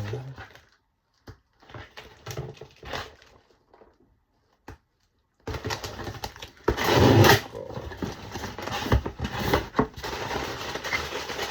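Cardboard parcel being opened by hand, with scattered clicks and crackles at first, then denser rustling and tearing of packaging from about halfway through, loudest about seven seconds in.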